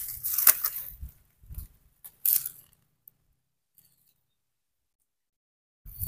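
Dry grass, twigs and leaf litter rustling and crunching as undergrowth and loose soil are pushed aside, in a few uneven bursts over the first two seconds or so. The sound then cuts out completely for about three seconds, and one more rustle comes near the end.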